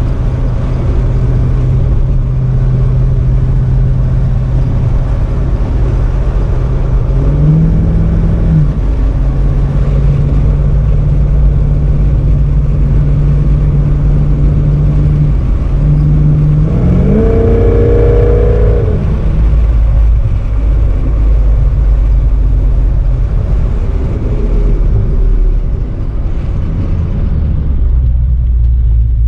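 Old car's engine running steadily, revved up briefly about a quarter of the way in, then revved harder with the pitch rising and falling back. It settles to a lower, slower idle near the end.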